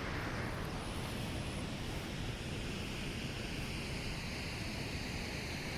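Steady rushing outdoor noise with no distinct events, heaviest in the low end.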